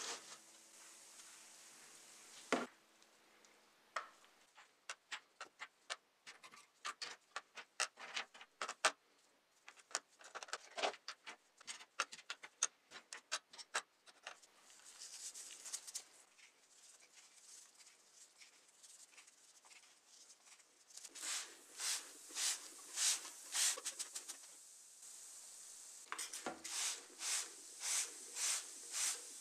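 Small diecast model-car parts clicking and clattering in a plastic tub, a quick run of sharp clicks. Later come two runs of rhythmic hissing strokes, about two a second.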